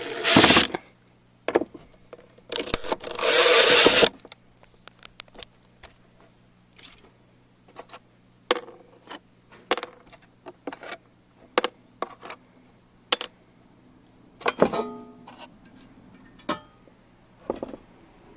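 Parts of a bathroom ventilation fan being handled during disassembly: a series of short clicks and clinks of hard parts, after two brief bursts of loud rushing noise in the first few seconds.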